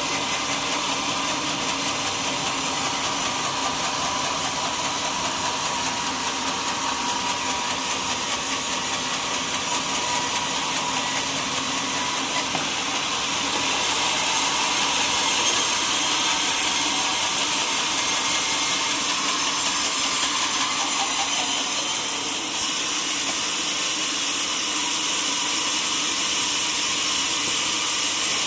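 Sawmill saw running steadily as it cuts through teak wood, a loud continuous sawing noise with a steady hum under it, growing a little louder about halfway through.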